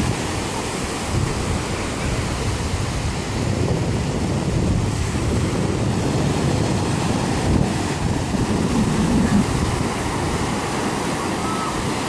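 Ocean surf washing in and breaking on the shore, a steady rushing noise, with wind buffeting the microphone and adding a low rumble.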